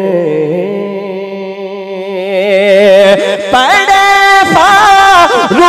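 A man singing a naat into a microphone, drawing out long held notes with a wavering vibrato and no words; about three and a half seconds in the voice climbs higher and louder into ornamented runs.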